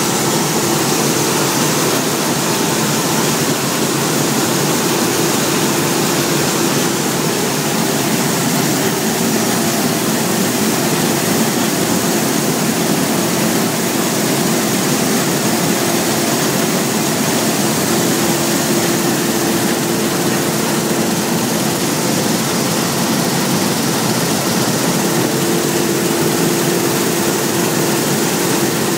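Claas Lexion 600 combine harvester running steadily while harvesting: a constant engine and machinery drone with a steady hum and hiss.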